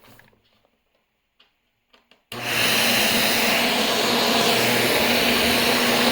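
Shark Rotator upright vacuum cleaner switched on a little over two seconds in, after a few faint clicks, and then running steadily with a constant hum. Its brush roll has just been cleared of wound-in hair and threads, and it runs reasonably well.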